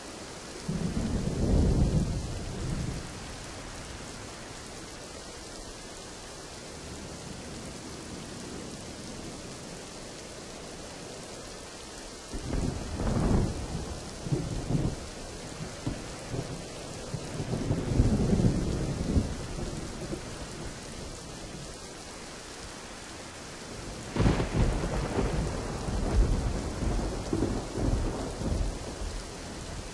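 Steady rain falling, with three rolls of thunder: a short one about a second in, a longer rumble from about 12 seconds that swells again near 18 seconds, and a crack followed by rolling rumbles from about 24 seconds.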